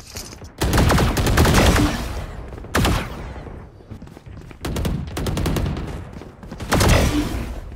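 Video game automatic gunfire: four bursts of rapid shots, the first lasting about a second and a half, a short one in the middle, and two more later.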